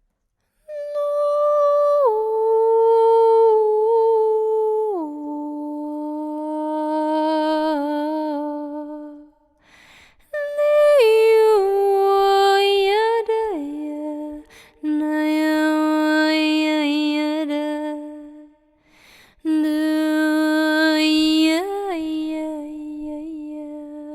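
A woman's voice singing wordless long held notes, close to humming, in four phrases that each step down in pitch to a low held tone, with short breaths between phrases.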